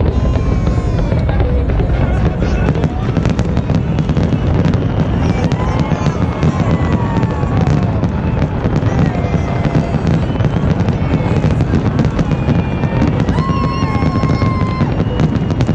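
Large fireworks display: a continuous rapid barrage of bangs and crackling over a steady low rumble.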